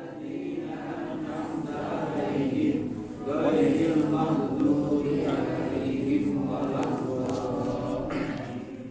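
Chanted vocal music: voices held in long melodic phrases, with a short break about three seconds in.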